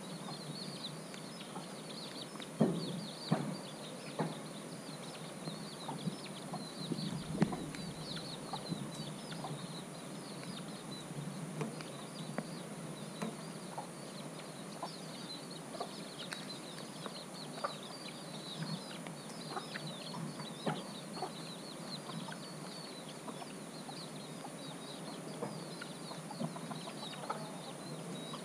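Rural outdoor ambience under a storm sky: constant high chirping over a steady high-pitched hum, with a few louder short calls or knocks about three seconds in and again near seven and a half seconds.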